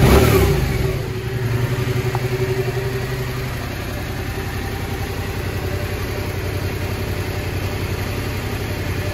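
Yamaha Tracer 700's parallel-twin engine settling back from a throttle blip in the first second, then idling steadily.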